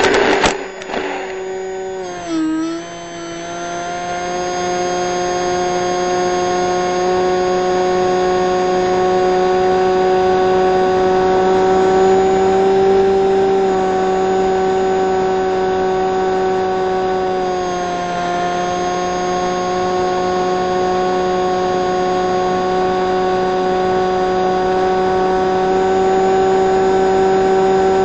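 Brushless electric motor and pusher propeller of a Bixler 3 RC foam plane running at high throttle in flight: a steady whine with a rushing noise beneath. The pitch dips briefly a couple of seconds in and again past the middle.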